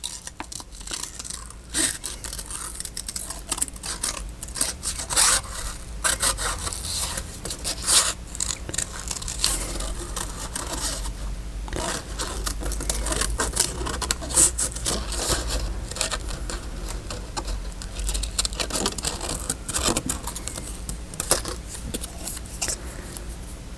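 Paper and card being handled: irregular rustling, scraping and sliding as pieces are shuffled and journal pages moved.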